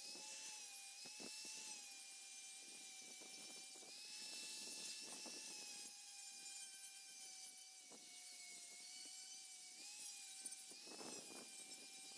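Handheld angle grinder running with its disc pressed against the rusty steel blade of a grub hoe, grinding off rust: a steady motor whine whose pitch dips slightly each time the disc bears down, over a gritty scraping hiss.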